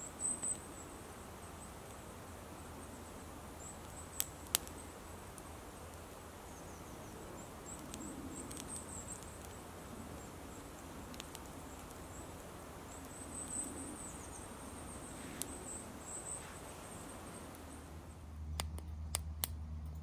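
A small wood fire burning in a titanium Bushbox stove, with a few sharp crackles now and then over a quiet woodland background that carries faint high-pitched chirps. Near the end the background turns into a steadier low hum and the crackles come closer together.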